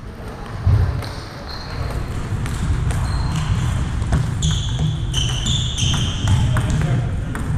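A table tennis rally: the celluloid-type plastic ball clicking sharply off paddles and table in quick succession. Several short high squeaks of sneakers on the gym floor come in the middle of the rally, over the steady low rumble of a large hall.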